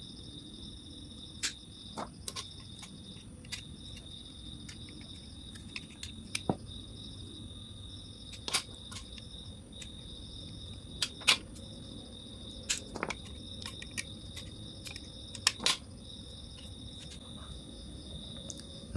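Steady high trilling of crickets, with scattered sharp clicks and taps as a motorcycle stator and its copper coil wires are handled; the loudest clicks come about two-thirds of the way through.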